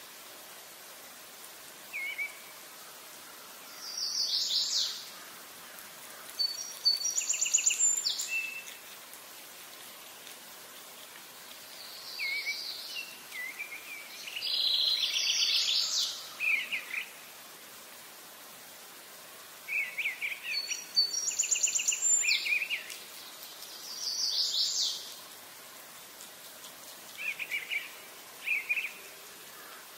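A songbird singing short, rapid trilled phrases every few seconds, over a steady faint hiss.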